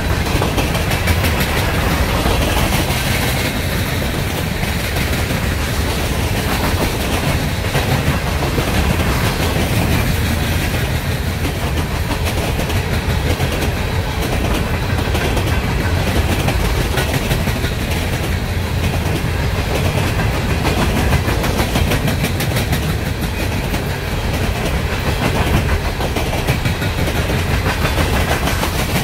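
Empty steel coal cars of a long freight train rolling past, their wheels clattering over the rail in a steady, loud rumble.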